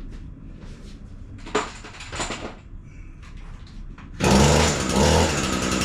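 Handheld string trimmer (weed eater) run up briefly from about four seconds in, loud and steady, tested after being knocked off a table onto the floor. A knock and some handling clatter come before it.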